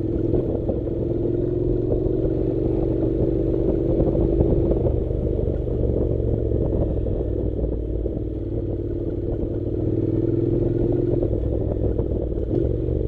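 Honda NC700's 670 cc parallel-twin engine running at low, fairly steady revs, its pitch rising and falling a little, as the motorcycle rides slowly over a rough dirt track. The bike rattles over the bumps.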